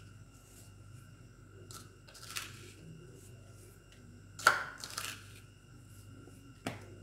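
Quiet scraping and rustling of salt being added to a bowl of dry cornflour, in a few short strokes, the loudest about four and a half seconds in.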